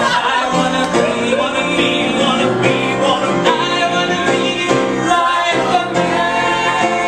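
Improvised musical-theatre song: several voices singing together over live upright piano accompaniment.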